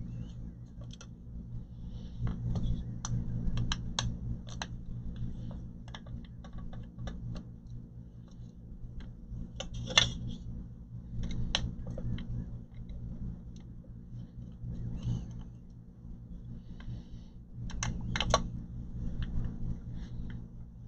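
Small clicks, taps and short scrapes of hands working on a hard drive and the plastic and metal parts inside an all-in-one computer, over a steady low hum. The sharpest click comes about halfway through, with a cluster of clicks near the end.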